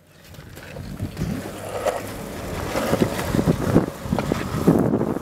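Longboard on Orangatang Stimulus 70 mm 86a urethane wheels rolling fast down asphalt: a rough rolling rumble with frequent knocks, growing louder over the first few seconds as speed builds, with wind buffeting the microphone.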